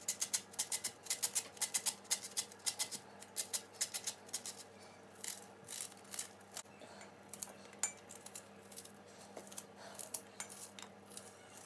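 Kitchen knife cutting a raw onion held in the hand: a quick run of crisp cuts, several a second, thinning out in the second half.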